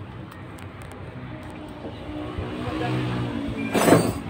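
A motor vehicle's engine note grows louder through the second half, a steady hum with a slight shift in pitch, then a short, loud burst of noise near the end.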